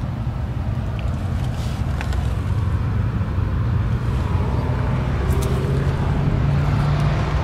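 Steady low vehicle rumble, with a faint hum that rises slightly in pitch over the last few seconds and a couple of faint clicks.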